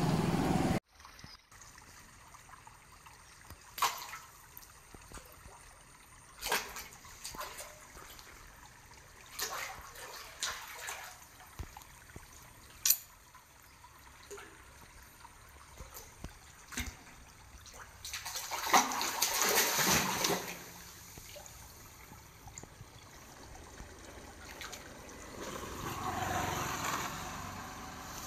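Water trickling and lapping, with scattered sharp clicks and two louder rushes of noise lasting a couple of seconds each, the first about two-thirds of the way through and the second near the end. A louder sound cuts off suddenly under a second in.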